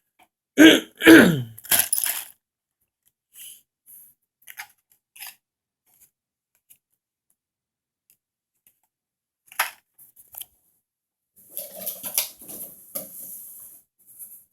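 Plastic action-figure parts being handled: scattered small clicks and taps, one sharper click past the middle, and a stretch of rustling and clicking near the end. About half a second in, a person makes two short, loud voiced sounds.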